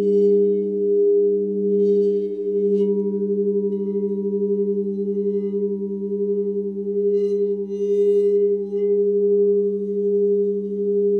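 Layered steady pure tones of a sound-healing drone tuned to 432 Hz and 528 Hz, with a lower tone pulsing slowly during the first few seconds. Faint high, sparkling chime-like notes come in briefly about two seconds in and again around eight seconds.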